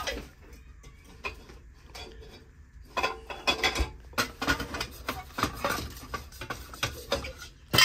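Metal platters and other objects clinking and clattering as they are handled and shifted, a quick run of knocks starting about three seconds in, with a louder clatter near the end.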